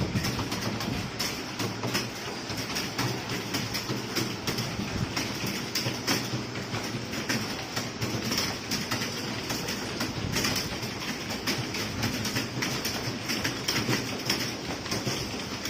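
Many computer keyboards typed on at once: a dense, steady clatter of overlapping key clicks.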